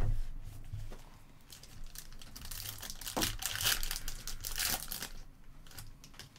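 A foil trading-card pack being torn open and its wrapper crinkled and crackled, busiest through the middle seconds and easing off near the end. A sharp thump comes right at the start.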